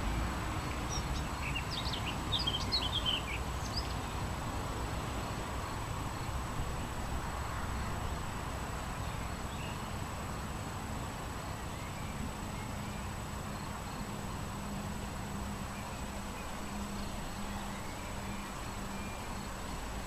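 Outdoor rural ambience: a steady rush of wind with a low rumble, and a quick run of high songbird chirps about one to three seconds in, with fainter bird calls later on.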